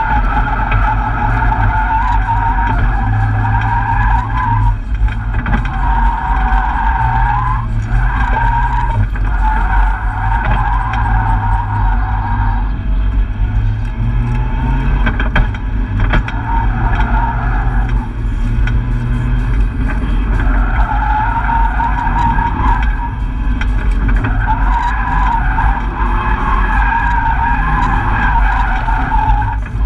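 Nissan S14 240SX drift car heard from inside its cabin: the engine runs hard at high revs, rising and falling as the driver works the throttle, while the tyres squeal through long slides. The squeal breaks off briefly several times between drifts.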